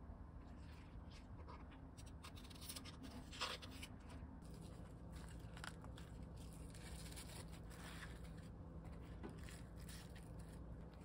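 Faint rustling, scraping and soft taps of hands handling wet cabbage and perilla leaves, laying them flat on a wooden cutting board, with one louder short scrape about three and a half seconds in.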